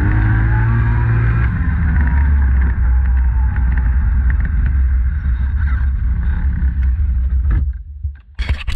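Polaris Sportsman 850 ATV's parallel-twin engine running at low speed with a steady low rumble, easing off and quietening near the end. A short burst of noise comes right at the very end.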